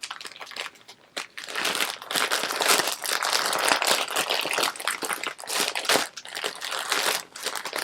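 Plastic packaging crinkling as it is handled, starting about a second and a half in and going on in uneven bursts.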